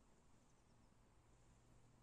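Near silence: faint background hiss with a steady low hum.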